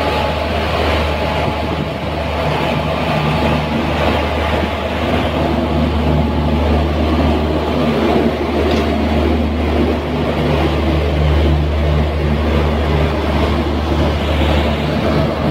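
Electric locomotive pulling slowly out of a station past the platform: a loud, steady low hum with a faintly pulsing drone over the rumble of its wheels on the track.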